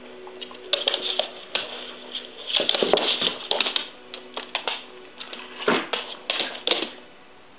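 A husky and a cat scrabbling and skittering across a hardwood floor in irregular bursts of clicking claws and scuffling paws as they tussle.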